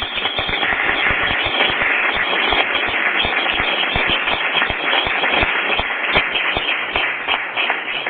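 Audience applauding: dense, steady clapping that thins a little toward the end, with single claps standing out.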